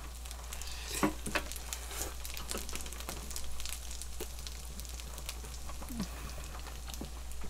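Close-miked eating sounds: wet chewing and slurping of noodles and fried rice, with irregular mouth clicks and a few sharper clicks about a second in, over a steady low hum.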